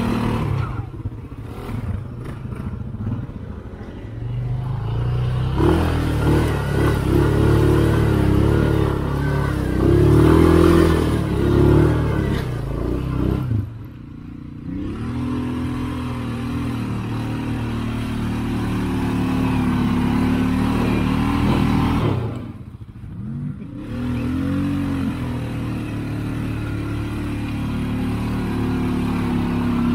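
ATV engine running under load, its revs rising and falling as the throttle is worked, with two brief lulls partway through.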